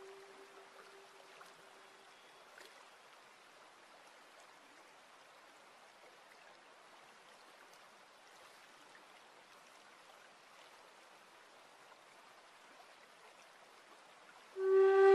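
Very faint, steady trickle of running water, close to silence, while a held low musical note fades away at the start. Near the end a flute note comes in loudly.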